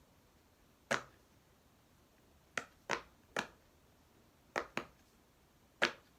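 A large silicone pop-it fidget toy having its bubbles pressed through one at a time: seven sharp pops at uneven intervals.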